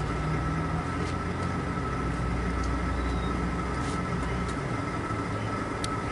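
A metal-melting furnace running: a steady low rumble and hum with a constant high whine over it.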